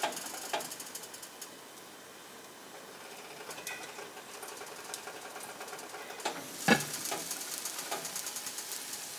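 Potato-and-egg Spanish omelette sizzling in an oiled frying pan, with light clicks and one louder clunk of cookware about two-thirds of the way through.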